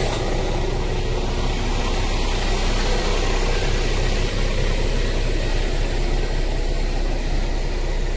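Car-carrier truck's diesel engine idling steadily, a constant low hum.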